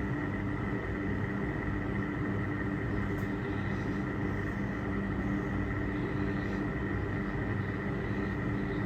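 Vulcan Dishlex Mk8 dishwasher running its final drain, the drain pump and motor giving a steady hum with a thin whine above it.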